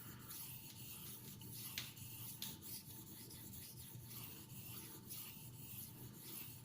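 Faint, steady abrasive scraping on a fine 1200-grit whetstone, with a couple of short ticks about two seconds in.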